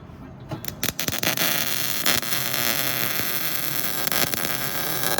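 Welding arc: a few short sputters about half a second in, then a steady crackling hiss for about four seconds that cuts off suddenly.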